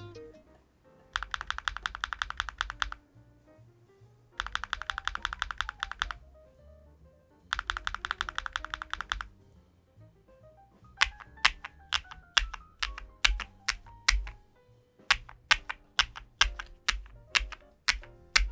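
Typing on a LUMINKEY75 V2 aluminium-case, gasket-mounted mechanical keyboard: three quick runs of rapid keystrokes, then slower separate key presses in short groups from about halfway through.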